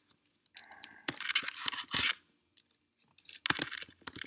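Computer keyboard typing: rapid clicking keystrokes in two runs, one starting a little under a second in and a second one near the end, with a short pause between.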